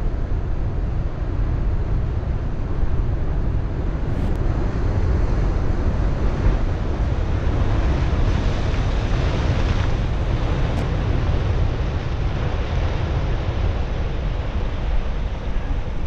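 Large surf breaking and washing, mixed with wind rushing over the microphone: a steady low rumble with a hiss that swells about halfway through.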